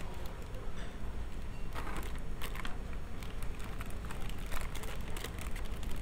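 Clear plastic bags around plastic model-kit runners crinkling and crackling as they are handled, over a steady low background rumble.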